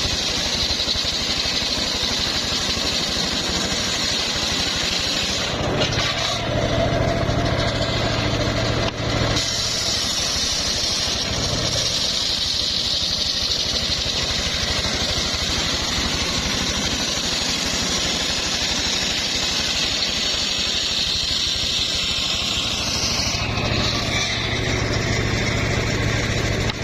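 Homemade circular sawmill rig running steadily, its engine and spinning blade giving a constant drone with a high whine. A deeper hum comes up about six seconds in and again near the end.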